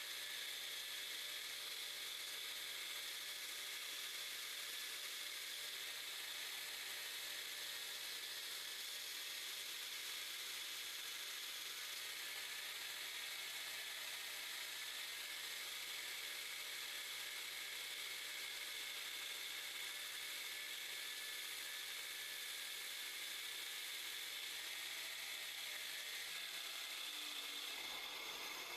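Bench grinder running while a high-speed steel threading tool is ground: a steady whir and hiss with a low motor hum, changing about two seconds before the end.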